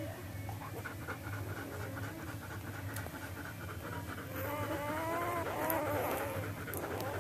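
Three-day-old puppies whimpering and squealing in high, wavering cries, about halfway through. Before that there is quick rhythmic panting at about five breaths a second, over a steady low hum.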